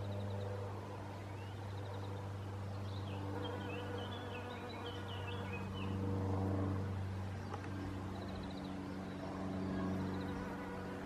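A steady low droning hum with even overtones, swelling a little twice. Over it come short high chirps and twitters of small birds, a quick ticking trill near the start, a burst of chirps a few seconds in, and another trill later on.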